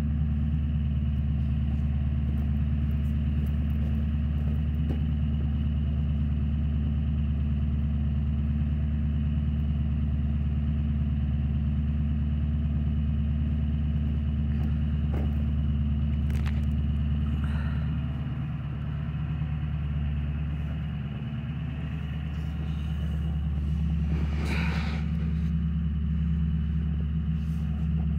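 Ford E-350's 7.3 L PowerStroke V8 turbodiesel, fitted with a Holset HX50 turbo and dual 5-inch exhaust, idling steadily. Its level dips a little about two-thirds of the way through, then recovers.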